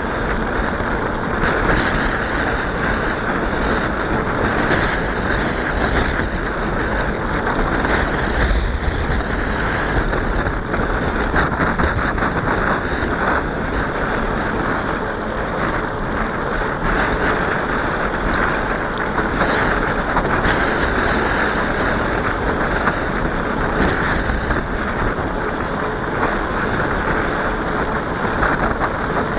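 Steady wind and tyre noise from riding a bicycle, the wind rumbling on the microphone with no break.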